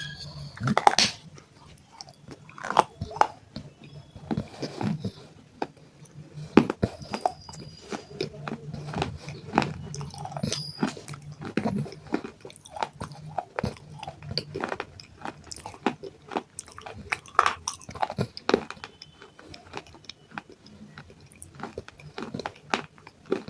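Close-up biting and chewing of broken baked-clay pot pieces: sharp, gritty crunches at irregular intervals, a few clearly louder bites among steady grinding chews.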